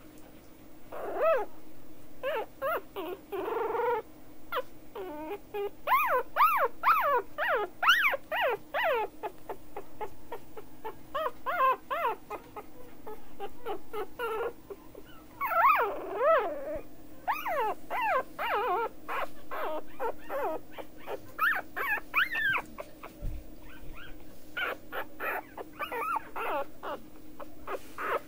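Very young Australian terrier puppy whimpering and squeaking: repeated short, high cries that rise and fall in pitch, coming in runs of several calls with brief pauses between.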